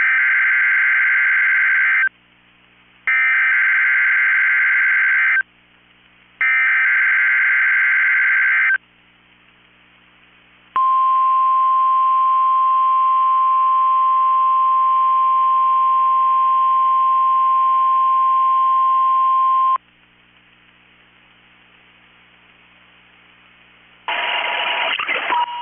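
Emergency Alert System header on NOAA Weather Radio: three buzzy digital data bursts of about two seconds each, a second apart, then a single steady warning alarm tone for about nine seconds that cuts off sharply. It marks the start of a test tornado warning. A few seconds of faint hiss follow before a voice starts near the end.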